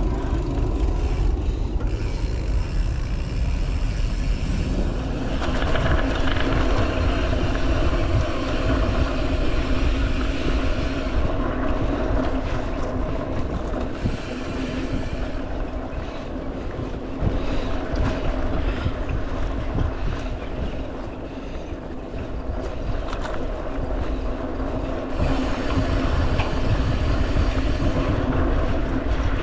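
Wind buffeting the microphone over the rumble of mountain bike tyres rolling on a dirt trail, steady throughout.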